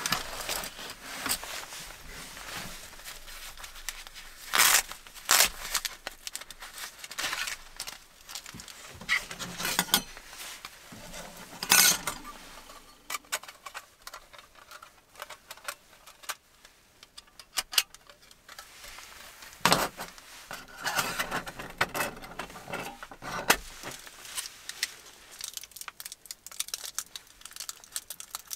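Thin metal panels of a folding camp stove clinking and clattering as they are taken from a pouch, handled and slotted together on a metal table, with several sharp clacks among the rustling. Crinkling of a wrapper being opened near the end.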